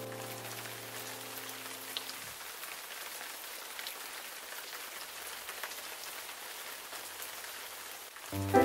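Steady rain falling, with scattered drop ticks, under soft background music: a held chord dies away in the first two seconds, and music notes start again near the end.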